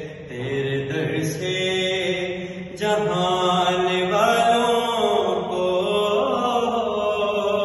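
A man's voice chanting a manqabat, a devotional Urdu poem, in a melodic recitation style with long held, gliding notes; it gets louder and fuller about three seconds in.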